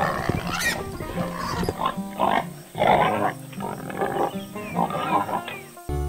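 Pigs grunting in a string of short bursts over background music, cutting off just before the end.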